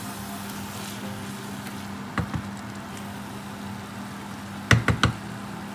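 Chicken and spices frying in a pot on an induction hob: a steady hum with a hiss over it. Sharp knocks come twice about two seconds in and three times near the end.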